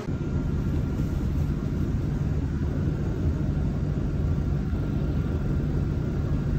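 Bus engine and road rumble heard from inside the cabin while riding: a steady low drone with a constant hum.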